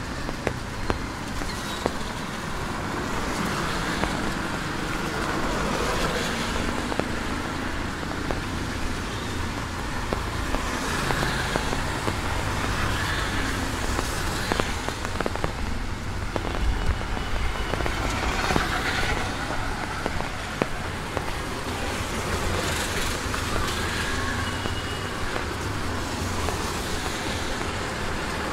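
Steady rain on a wet street, with motor vehicles, among them a three-wheeled auto-rickshaw, passing on the wet road every few seconds, each swelling and fading away.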